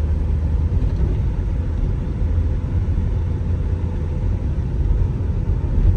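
Steady low rumble of engine and road noise heard from inside the cabin of a 2001 Honda Prelude pulling away and driving in first gear.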